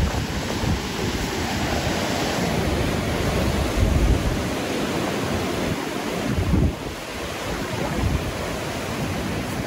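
Steady rushing of a waterfall, with wind buffeting the microphone in an uneven low rumble.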